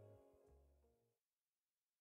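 Background music fading out, its last notes dying away about a second in, then silence.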